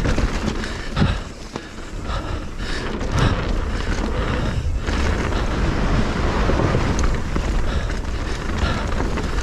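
Mountain bike rolling fast down a dirt flow trail: steady rush of wind on the microphone and tyre and frame noise, with a few thumps from bumps.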